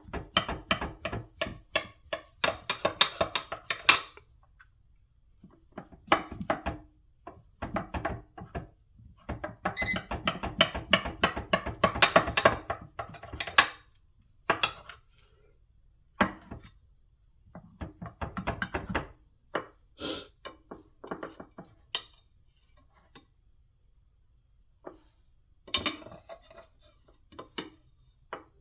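Kitchenware being handled: bursts of rapid clattering, knocking and clinking, broken by short pauses.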